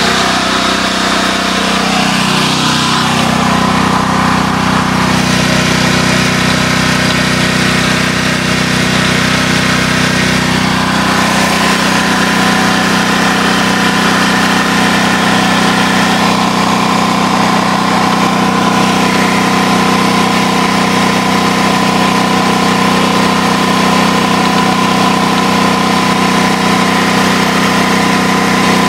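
Sportsman 4000LP propane generator's engine running steadily at constant speed, a continuous even drone.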